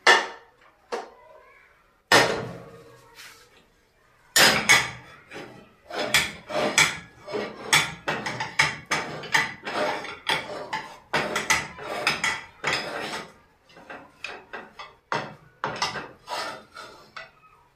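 A cooking stick knocking and scraping against a pot over and over, about two sharp knocks a second, as the finished ugali is scooped out and shaped. It starts with a couple of separate knocks, then runs steadily from about four seconds in.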